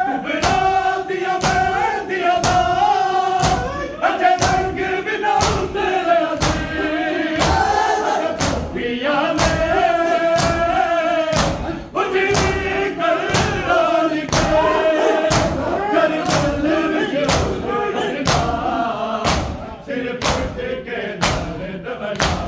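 Men reciting a Punjabi noha together, chanting in mourning, over the steady rhythmic thud of chest-beating matam at about two beats a second.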